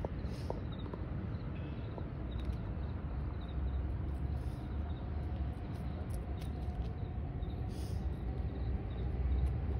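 Steady low background rumble, with a couple of faint short squeaks about half a second and two seconds in.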